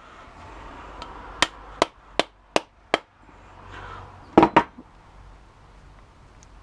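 Hammer blows on a refrigerator fan motor's metal housing, hammering the copper winding out: a run of five sharp strikes about two and a half a second, then a loud pair of strikes close together after a short pause.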